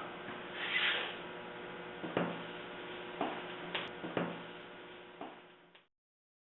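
Steady electrical hum with a few faint clicks, roughly a second apart; the sound cuts off abruptly near the end.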